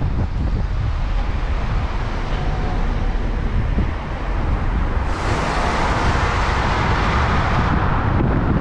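Car driving along a town street, heard from inside a following car: a steady low rumble of engine and road with wind noise on the microphone. A louder rushing hiss comes in about five seconds in and fades out shortly before the end.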